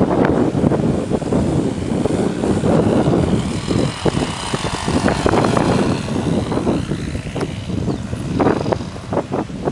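Wind buffeting the microphone, with the O.S. 1.20 AX two-stroke glow engine of a Joss Stick RC model plane heard as a whine that rises and falls in the middle as the plane passes.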